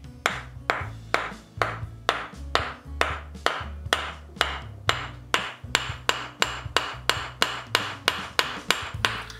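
Wooden mallet tapping a Cushman three-jaw lathe chuck, a steady run of about two sharp knocks a second, trying to jar the chuck's back loose, which a small screw is holding in.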